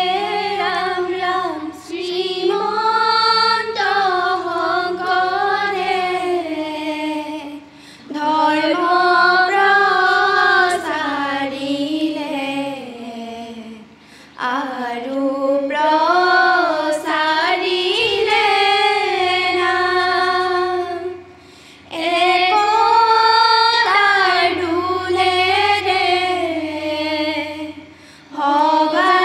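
A group of girls singing dihanam, an Assamese devotional chant, without instruments. They sing long melodic phrases with brief pauses between them, about five times.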